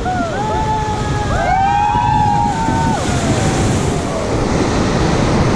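Whitewater rushing loudly around a raft in rapids. Over it several people cry out in long, overlapping, rising-and-falling whoops that die away after about three seconds.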